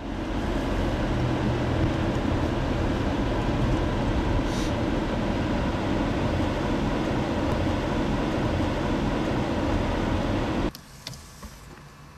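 Car interior noise: a loud, steady low rumble of engine and road heard from inside the car. Near the end it drops suddenly to a much quieter cabin hum, with a couple of faint clicks.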